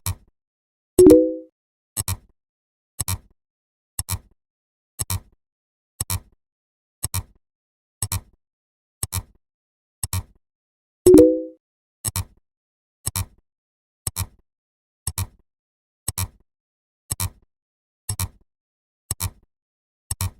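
Sound effects marking a count: a short click about once a second, with a louder, brief pitched tone of a few stacked notes about a second in and again ten seconds later, setting off every tenth number.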